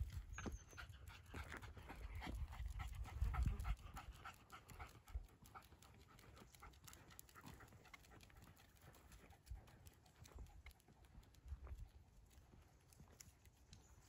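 Jack Russell terrier panting quickly and evenly, several breaths a second, loudest in the first few seconds and then fading, with light ticks of steps on the path.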